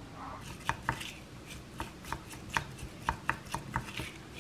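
Wooden spoon knocking and scraping against a ceramic bowl while diced apple is mixed with cinnamon and maple syrup: a run of light, irregular clicks, about a dozen.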